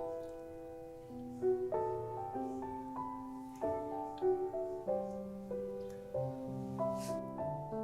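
Background music: a soft, slow piano melody with chords, notes changing about every half second.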